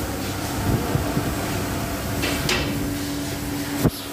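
Dodge Charger engine running steadily, a constant hum with a low rumble, with a single sharp knock near the end.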